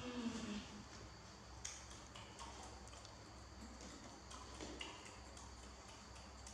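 Faint, scattered soft clicks, several seconds of them, like lip-smacking kisses, after a short falling hum of a voice at the very start.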